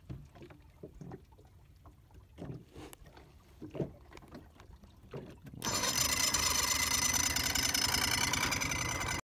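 Small boat on open water: a few soft knocks against the hull, then a little past halfway a loud, steady rush of wind and water noise as the boat moves, which cuts off suddenly near the end.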